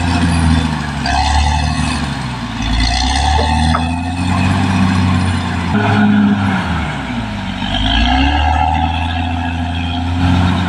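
Caterpillar D6R XL bulldozer's diesel engine running under load, its speed rising and falling repeatedly, with a dip and climb in pitch about seven seconds in.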